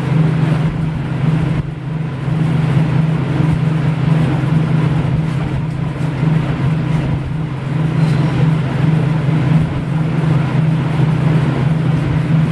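A steady low hum over a constant hiss, unchanging throughout, like a motor or fan running.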